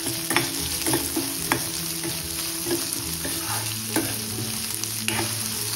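Chopped onions sizzling in hot oil in a stainless steel kadhai while a steel ladle stirs them, with a few sharp clinks and scrapes of metal on the pan.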